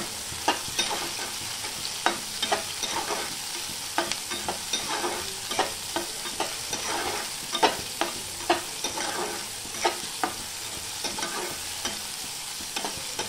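Sliced onions and crushed garlic sizzling in hot oil in a kadhai, sautéing until light pink. A spatula stirs them, with frequent sharp scrapes and taps against the pan over the steady hiss.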